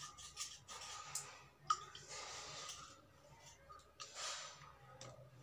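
Steel knife blade scraping wet slate pencils, a few short rasping strokes with small clicks between them. Under two seconds in there is one sharp click with a brief ring.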